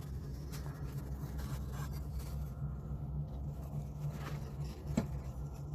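Handling noise from a hand and camera moving among the engine-bay parts: a few faint clicks over a steady low hum.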